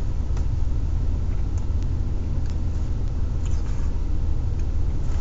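Car engine idling, a steady low rumble heard from inside the cabin, with a few faint clicks over it.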